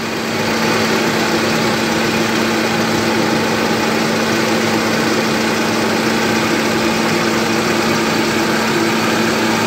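Hyundai Atos fuel-injected engine idling steadily, its idle speed just turned down by tightening the idle air adjustment screw on the throttle body.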